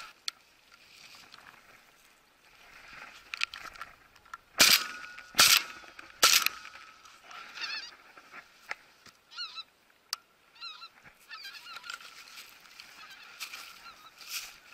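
Geese honking as a flock passes overhead, with three quick shotgun shots less than a second apart about halfway through.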